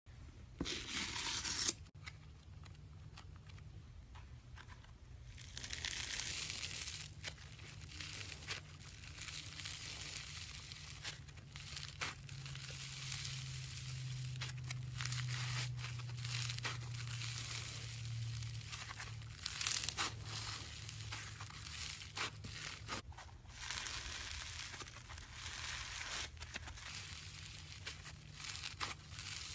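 Slime being handled and stretched: a noisy crackle dotted with many small clicks, with short pauses about two and five seconds in and again near the last quarter, over a low steady hum.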